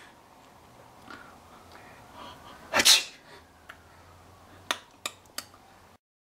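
A father's playful fake sneeze, one loud breathy "achoo" about three seconds in, followed near the end by three short sharp clicks.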